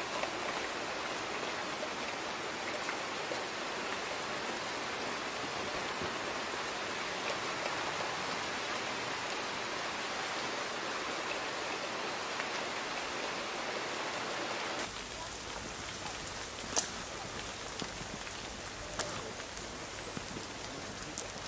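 Steady rain falling, an even hiss. About 15 s in the sound changes to a slightly quieter, lower hiss with a few sharp drop taps.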